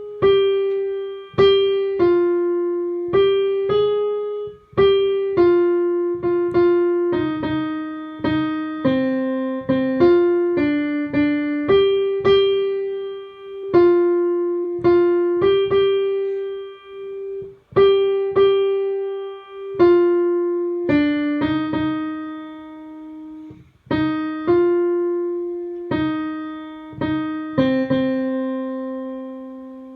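A piano plays a single melody line, note by note, as the alto 1 part of a choral arrangement, in the middle of the alto range. Each note is struck and left to decay, and a longer low note is held near the end.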